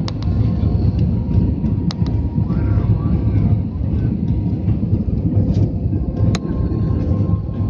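Jet airliner cabin noise heard from a window seat: a steady low engine and airflow rumble with a faint steady hum, broken by a few sharp clicks.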